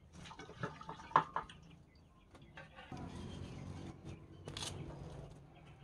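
Hands working seasoning into raw chicken pieces in a bowl: wet handling and liquid sounds, with a few sharp knocks in the first second and a half and a brief rustle about four and a half seconds in.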